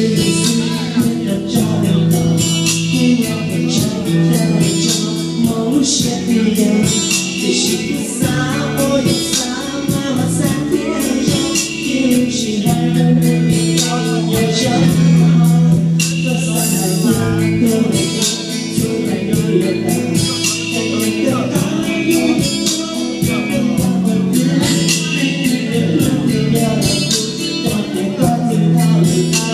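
A man singing karaoke into a microphone over loud backing music with a steady beat.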